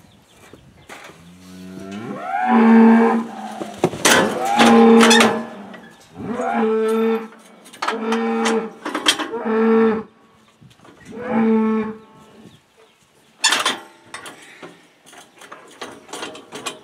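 Charolais cattle mooing, about six short low moos in a row, with sharp metal clangs from the steel cattle chute, the loudest about two-thirds of the way through.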